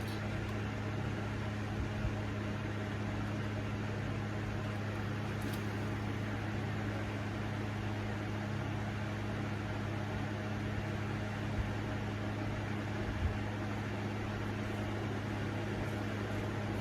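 1981 Moss Caribbean Breeze ceiling fan running, a steady electric motor hum with the even rush of air from its blades.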